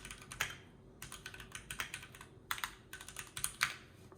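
Typing on a Keychron Q3 mechanical keyboard with tactile brown switches and PBT keycaps: quick flurries of key clicks in three bursts, the loudest strokes near the end.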